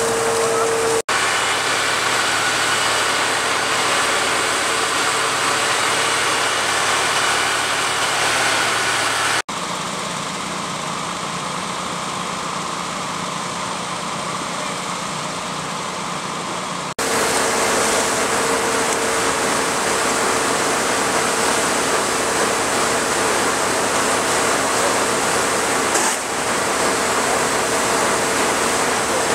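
Fire engines and their pumps running steadily under a loud, even rushing noise from hoses spraying water. The sound changes abruptly about a second in, near ten seconds and near seventeen seconds; the middle stretch is a quieter, lower engine hum from fire trucks pumping water beside a pond.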